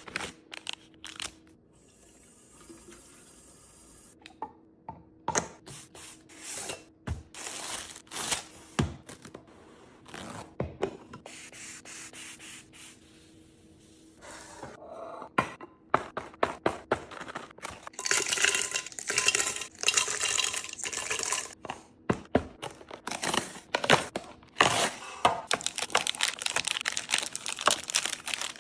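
Groceries and containers being handled and set down: scattered clicks, clinks and knocks, then from about eighteen seconds in, a dense run of plastic packaging crinkling. A faint steady hum runs under the first half.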